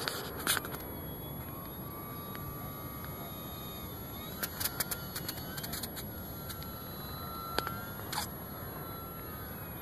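Distant whine of an electric RC airplane's AXi 2826/10 brushless motor and propeller in flight, its pitch sliding slowly up and down with throttle and passing, over a steady rushing noise. A few sharp clicks come about half a second in, around the middle and near the end.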